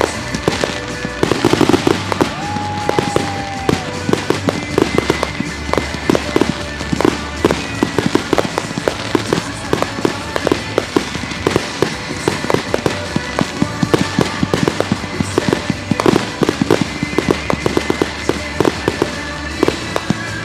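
Consumer fireworks going off in quick succession, dense sharp bangs and crackling through the whole stretch, with music playing underneath. A short steady whistle sounds about two seconds in.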